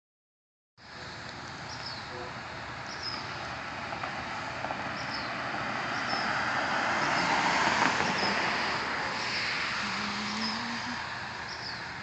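A car passing on the road, swelling to its loudest a little past the middle and then fading. Over it a bird repeats a short, high, falling chirp about once a second.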